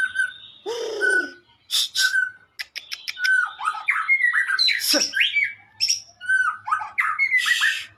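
A contest songbird singing a fast, varied song: whistled notes and quick down-slurred phrases broken by a few harsh, rasping bursts.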